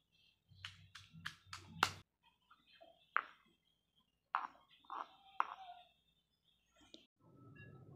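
Granite pestle pounding pineapple into a wet chilli paste in a stone mortar. A quick run of about five knocks comes in the first two seconds, the loudest near two seconds in, followed by a few scattered single strikes.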